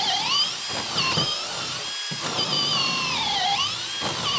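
Makita brushless cordless hammer drill boring a 3/4-inch bit into a pressure-treated 4x4. The motor's whine sags in pitch as the bit bites and climbs back again, several times, with a short break about halfway through.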